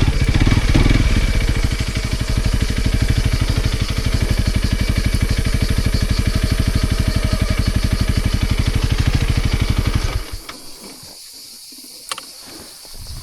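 Honda CRF250 Rally's single-cylinder engine running steadily with an even beat, then shut off suddenly about ten seconds in.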